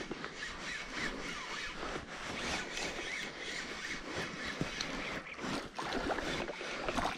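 Spinning reel being cranked against the pull of a hooked pike on a bent rod, with small irregular clicks and jacket sleeves rustling close by.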